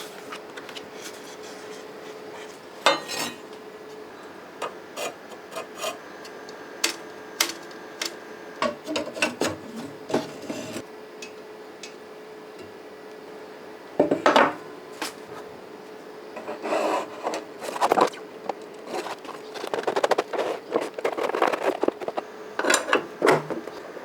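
Intermittent rubbing and scraping with scattered light knocks and clatter, as of hands working with tools or materials, over a faint steady hum.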